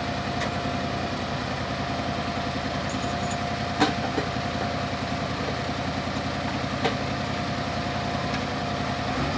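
AGCO super stock pulling tractor's engine idling steadily at the end of its pull, with a faint steady whine over it. Two sharp clicks come about four and seven seconds in.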